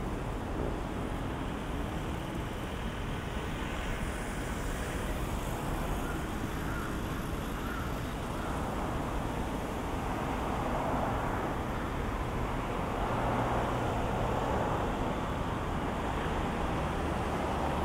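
Steady road traffic on a busy multi-lane avenue: a continuous mix of car and van engines and tyre noise. It swells a little louder in the second half as more vehicles pass.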